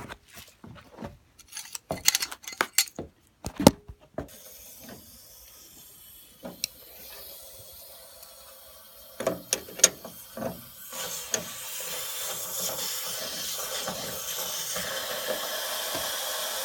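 A few sharp clicks and knocks, then a steady hiss of rushing water that grows louder about eleven seconds in: a gas water heater tank being drained into a bathtub to flush out sediment and rust.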